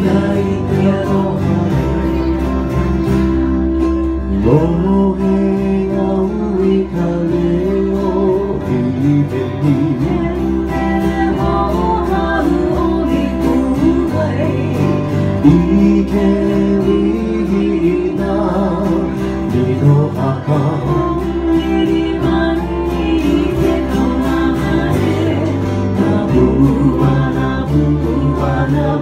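Live Hawaiian-style band playing a song on acoustic guitars and ukuleles, with a singer and low bass notes changing every couple of seconds.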